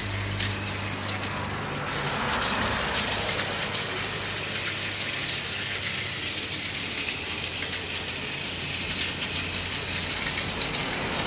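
Battery-powered Plarail toy trains running on plastic track: a steady mechanical whir with faint clicking from wheels and gears, and a low hum that fades out about two seconds in.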